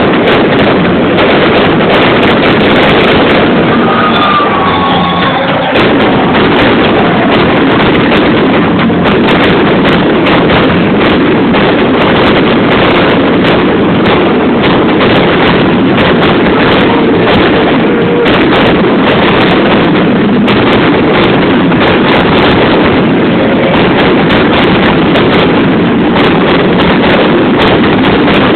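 Fireworks display: a dense, unbroken barrage of bangs and crackling, loud and steady enough to sound like a continuous roar.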